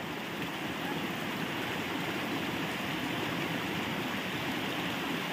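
Small stream running steadily over rocks in a low cascade.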